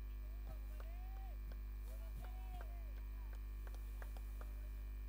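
Steady electrical mains hum with a stack of overtones, carried on the audio feed while the commentator is silent. Over it come a few faint clicks and brief faint tones that rise and fall.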